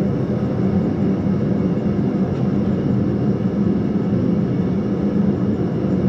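Forge running with a steady low rushing noise.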